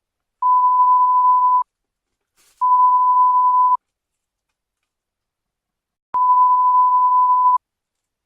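Three censor bleeps, each a single steady tone lasting a second or so, with dead silence between them: swearing bleeped out.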